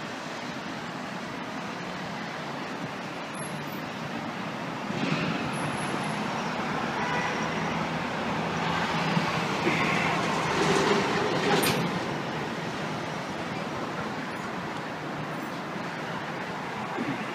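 City traffic noise: a steady roar of vehicles that swells for several seconds in the middle as something heavy passes, with a few brief squeals at its loudest, then eases off.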